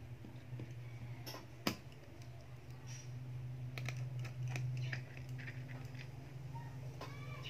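Scattered small clicks and taps of a small hand tool and fingers on a smartphone's frame and internal parts during reassembly, over a steady low hum.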